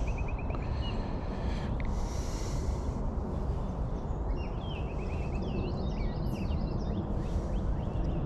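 Steady low outdoor rumble of wind and moving water, with small birds chirping in quick runs of short notes at the start and again from about four to six seconds in.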